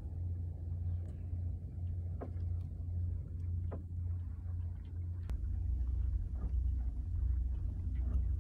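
Steady low wind rumble on the microphone aboard a sailboat, with a few faint clicks. About five seconds in, the rumble drops lower and grows a little louder.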